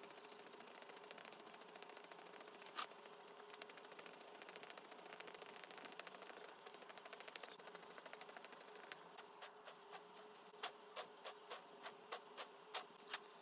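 Ultrasonic dental scaler buzzing, with a hiss of water spray, as its metal tip works along a dog's teeth. A steady high tone joins about nine seconds in, and short ticks come thicker in the second half.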